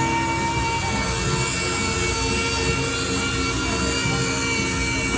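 Pneumatic random-orbital sander running steadily with a whine against the painted fender of a car, sanding out a key scratch to prepare the panel for repainting.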